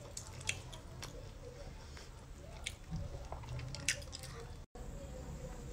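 Wet squishing of sea-snail meat being worked out of its shell with a small metal fork, with a few sharp clicks of the fork against the shell.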